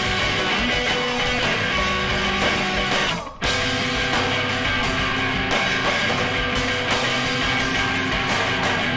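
Recorded rock music led by guitar, breaking off for a split second about three seconds in before carrying on.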